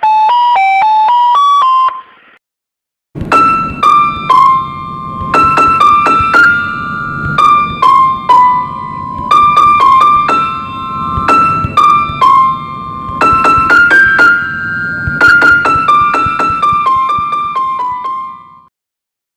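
Ice cream sellers' electronic jingles: a quick beeping tune ends about two seconds in, and after a short pause a longer keyboard-style melody with a low backing plays, stopping near the end.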